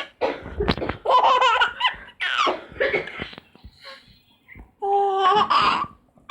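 A baby laughing in repeated bursts, set off by someone coughing; short noisy coughs fall between the laughs.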